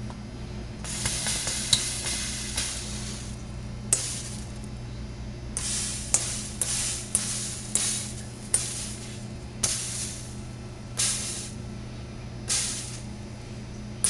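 Sizzling: about a dozen sharp hissing bursts, each starting suddenly and dying away within a second, over a steady low hum.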